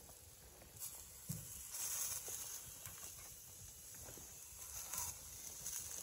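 Faint handling sounds: soft taps and light rustles as raw chicken pieces are taken from a foam tray and laid on a wire grill rack, with a plastic rain poncho rustling now and then.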